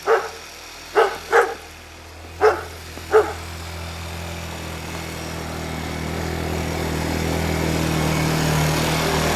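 A dog barks five times in quick, uneven succession, then an ATV engine runs steadily and grows gradually louder.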